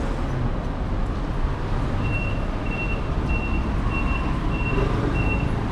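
Street traffic noise with a vehicle's reversing alarm starting about two seconds in: a high, evenly repeating beep, a little under two beeps a second.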